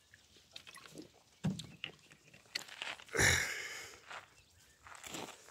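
Hamadryas baboons close by: scattered small scuffs and clicks of movement on sandy ground, with one short, harsher, louder sound a little after three seconds in.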